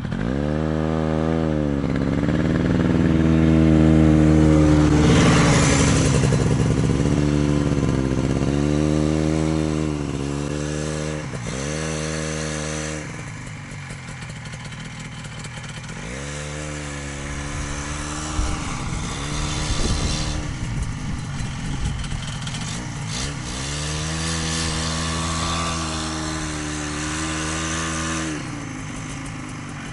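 Buran snowmobile engine revving up and down again and again as the machine is worked around through deep snow. The pitch climbs and drops with each burst of throttle, loudest in the first few seconds and easing off for a while before about the halfway point.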